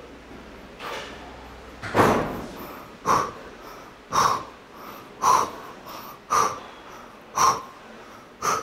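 A person's sharp, forceful exhalations, seven of them about a second apart, in an even rhythm like breathing out on each rep of a weight-training set.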